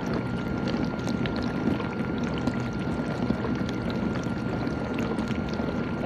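GE dishwasher running, water rushing and sloshing steadily inside the tub, with a faint steady high tone over it.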